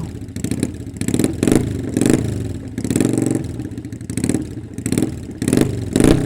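Motorcycle engine running and being revved in repeated short blips, its pitch rising and falling with each surge about once a second.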